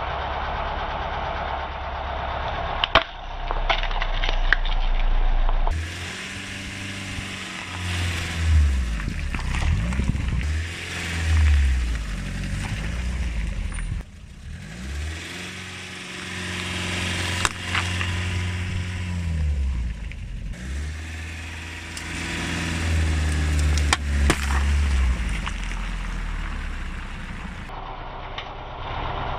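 A car engine idles and revs gently as the car creeps forward over cans and plastic bottles. Sharp cracks and pops come as they burst under the tyre, a few times over. The sound cuts abruptly and starts again several times.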